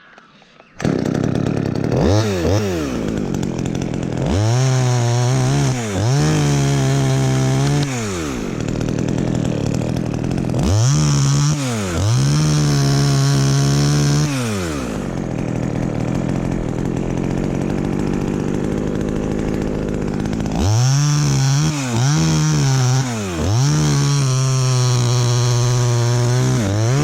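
Chainsaw engine run up to full throttle again and again, held high for a few seconds each time and dropping back to idle between, as it cuts into a tamarind tree.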